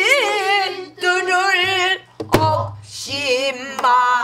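A woman sings pansori in a full, strong voice with wavering held notes, keeping time herself on a buk barrel drum with a wooden stick. One sharp drum stroke is heard about two seconds in.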